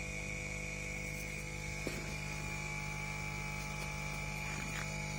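Steady electrical hum and buzz with a constant high whine, and one faint click about two seconds in.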